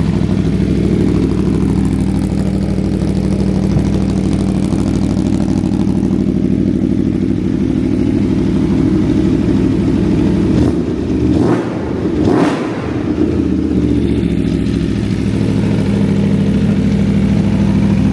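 2022 Aprilia Tuono V4 1100 Factory's V4 engine idling steadily, with two quick throttle blips a little past halfway, the revs rising and dropping back each time before it settles to idle again.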